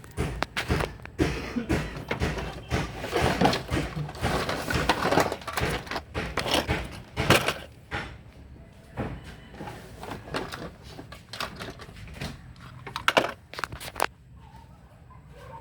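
Irregular clattering, knocks and rustling of things being handled, with sharp clicks. It is busiest in the first half, with a few louder clicks near the end.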